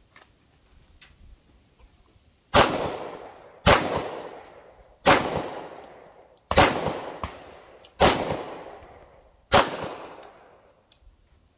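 Six 9mm CZ pistol shots, spaced about one to one and a half seconds apart, each trailing off over about a second.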